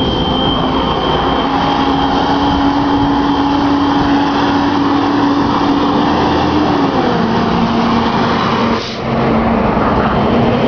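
A loud outdoor fire alarm sounding continuously, a steady drone whose pitch drops slightly about seven seconds in.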